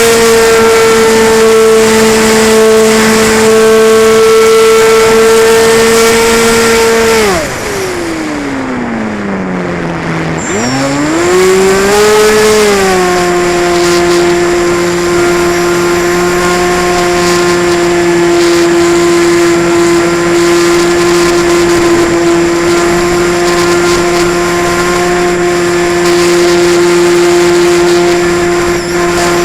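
Radio-controlled model Cessna 185's motor and propeller heard from the on-board camera, running at a steady high pitch. About seven seconds in the throttle is pulled back and the pitch falls for about three seconds. It is then opened up again and settles at a steady, somewhat lower pitch.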